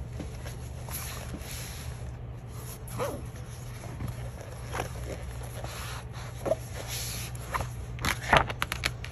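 Hands handling the pages of a large art book: soft paper rubs and rustles here and there, then a quick flurry of paper crackles about eight seconds in as a page is turned. A steady low hum runs underneath.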